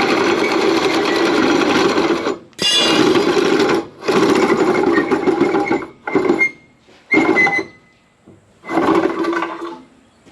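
Handheld power tool run in repeated trigger bursts: a long run of about two seconds, then several shorter runs of a second or less, each starting and stopping sharply.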